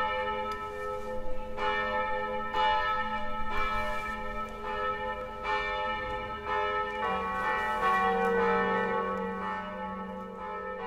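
Slow bell-like chimes playing a melody, notes struck about once a second and left to ring into each other over a held low note that changes about seven seconds in.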